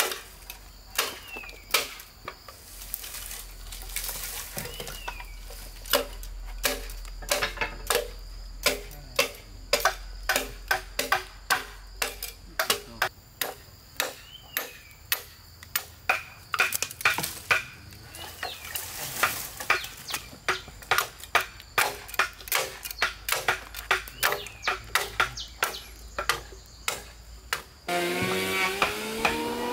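Repeated sharp knocks of a hand tool striking wood in woodworking, irregular, about two to three blows a second.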